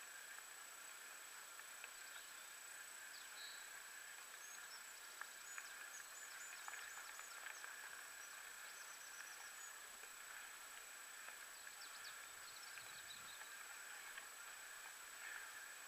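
Near silence: faint, muffled outdoor ambience under a thin steady high whine, with a few brief bird chirps near the middle.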